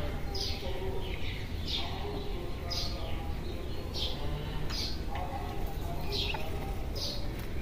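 Quail chirping: short, high, falling peeps repeating about once a second.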